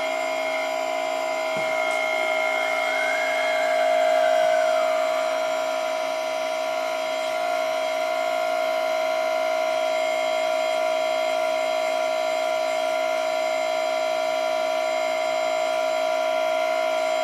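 Hydraulic pump of an RC Volvo EC480D model excavator whining steadily while the grapple lifts and swings a stone block; it is the older pump, not the newer silent one, so the machine is not silent at all. A second, higher tone rises and falls about two to five seconds in.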